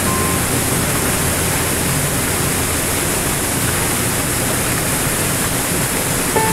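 Small waterfall cascading over rocks into a churning pool: a steady, full rush of falling water. A soft piano note sounds at the very start, and piano notes come back just before the end.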